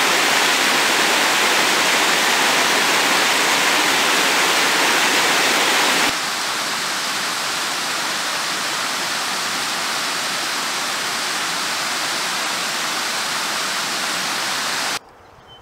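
Small woodland waterfall: water rushing and splashing steadily over stepped rock ledges into a creek. The rush drops a step in loudness about six seconds in and cuts off abruptly near the end.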